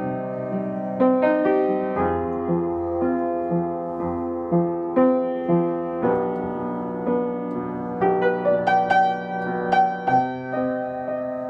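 Upright piano played slowly in held chords and single notes, using only the notes of C minor, F minor and G major. About eight seconds in comes a quicker run of higher notes.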